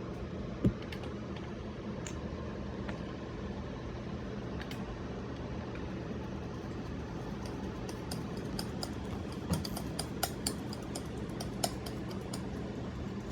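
Steady low hum with scattered light clicks and taps of containers and utensils being handled for a baking soda experiment: one sharp click about a second in and a cluster of small taps near the end.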